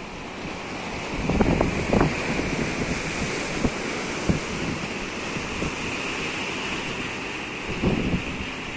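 Surf washing over shoreline rocks and wind buffeting the microphone, strongest in gusts about a second in and again near the end, with the engines of small outrigger fishing boats running underneath as they head out to sea.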